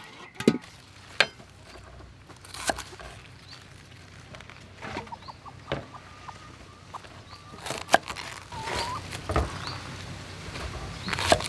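Scattered sharp knocks of a cleaver on a wooden chopping block, coming irregularly, about eight in all. Chickens cluck briefly now and then in the background.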